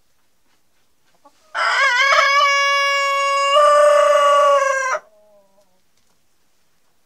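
Rooster crowing once, a single long crow of about three and a half seconds. Its pitch wavers at the start, then holds steady, grows louder partway through and stops abruptly.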